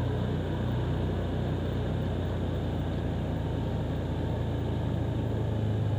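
Motorcycle engine running at a steady speed while riding, a constant low drone with road noise.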